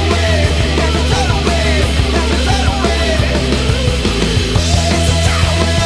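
Loud background rock music with heavy, distorted guitars and a driving beat.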